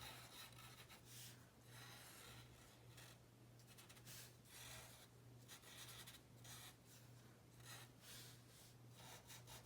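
Faint pen strokes on paper: a run of short scratchy strokes as wood-grain lines are sketched onto a drawn branch.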